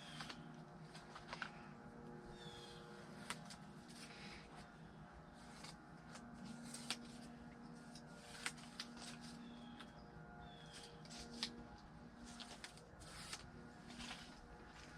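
Faint handling noises: scattered light clicks, taps and rustles as the heater box and its freshly applied sealing tape are handled, over a low steady hum.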